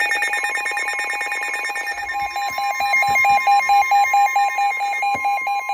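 Several NOAA weather radios sounding their alert alarms at once for a severe thunderstorm warning: electronic beeping over steady high tones, joined about half a second in by the broadcast's steady warning alarm tone. About two seconds in, one radio's alarm settles into a pulsing beep of around six beeps a second.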